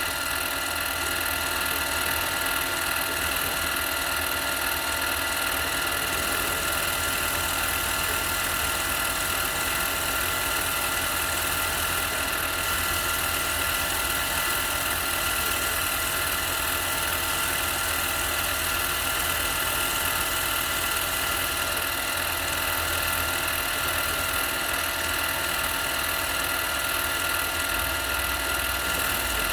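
Harbor Freight mini lathe running steadily, with a steady motor whine, during a light touch-up cut of a couple of thousandths on a hub-centric ring.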